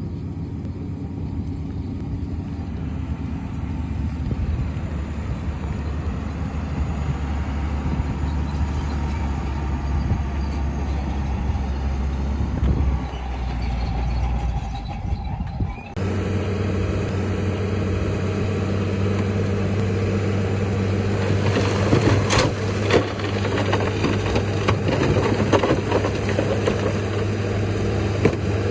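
Heavy diesel earthmoving machinery running steadily. The engine sound changes abruptly about halfway through, and sharp knocks and rattles come in the later part.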